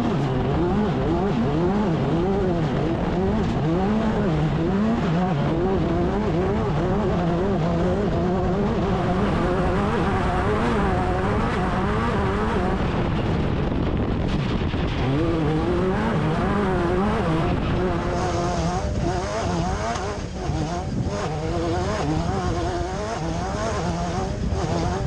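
Class 10 off-road race car's engine running hard, its revs swinging up and down quickly and over and over as the car is driven at race pace.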